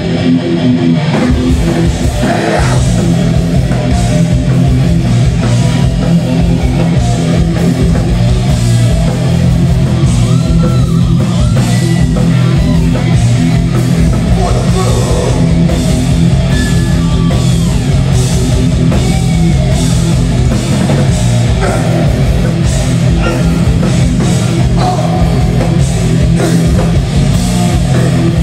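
Live heavy metal band playing loudly: distorted electric guitar, bass and a driving drum kit, with a vocalist singing into a handheld mic.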